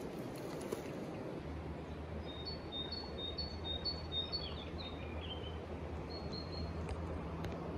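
A bird calling: a run of short high chirps, about two a second, ending in a few falling notes, then one more chirp a second later, over steady outdoor background noise. A low steady drone sets in about a second and a half in.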